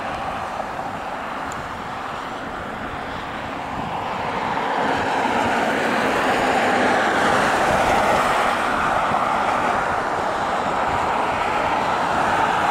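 Road traffic moving through an intersection: a steady wash of tyre and engine noise that grows louder about four seconds in as vehicles pass close by.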